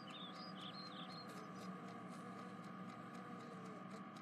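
Faint background ambience: a steady low hum, with a few quick, high squeaky chirps during the first second or so.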